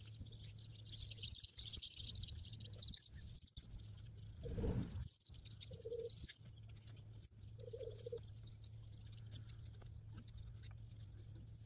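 Small birds chirping and twittering faintly, many quick high chirps over a steady low hum. About halfway through comes a brief low rumble, the loudest moment, and after it two short low calls.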